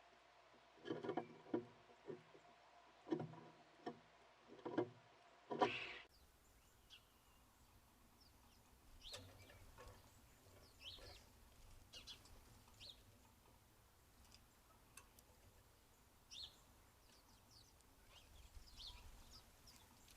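About six sharp knocks in the first few seconds. After that, scattered faint, short, high bird chirps from small backyard birds.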